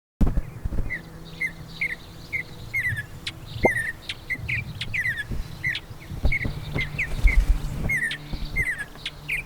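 Repeated short, falling chirps, about two a second, from a small animal or bird, with fainter higher bird calls and a low rumble underneath.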